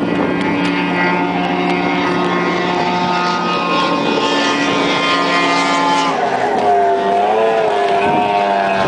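High-performance 2.5-litre 260 hp racing outboard motor running at high speed with a steady high engine note; about six seconds in the pitch drops and wavers up and down, then evens out.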